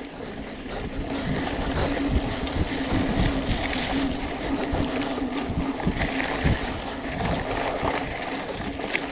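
BMC Twostroke AL 2 hardtail mountain bike ridden fast on dirt singletrack. Wind rushes over the camera microphone and the tyres roll over the dirt, with a steady hum and frequent short knocks and rattles from bumps.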